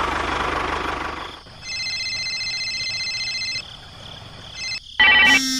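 Engine-like rumble that dies away after about a second. Then a steady electronic ringing tone holds for about two seconds, and a mobile phone ringtone starts near the end.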